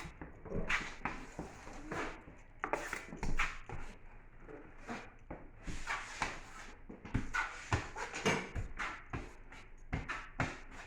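Drywall knife spreading and scraping joint compound across a drywall wall in repeated irregular strokes, with a few light knocks of the blade.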